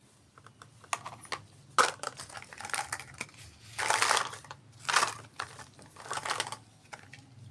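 Small plastic toy pieces and their packaging handled close up: a string of light clicks and taps, with several louder rustling scrapes, the loudest about four seconds in.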